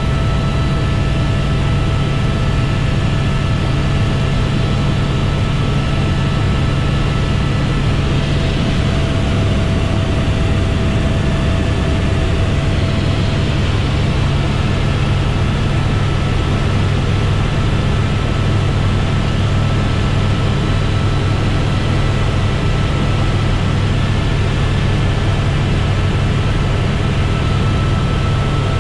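Helicopter in flight heard from inside the cockpit: a loud, steady drone from the rotor and engine, with a thin, level whine above it.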